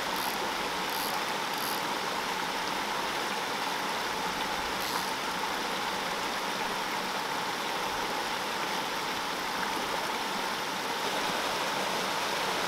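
Mountain stream flowing over low rock ledges and small cascades: a steady rush of water. A few faint high ticks come in the first few seconds.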